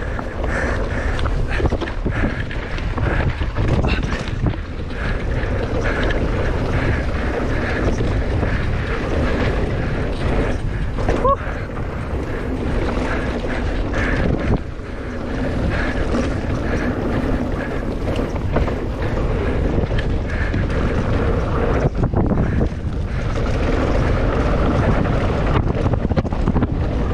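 Wind rushing over the camera microphone of a mountain biker riding a trail, a steady rumble with a few short knocks from the bike over the ground.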